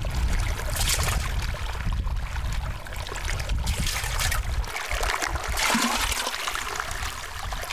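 Water from a shallow stream scooped with a plastic ladle and poured into a metal milk can, trickling and splashing in several separate pours, over a low rumble.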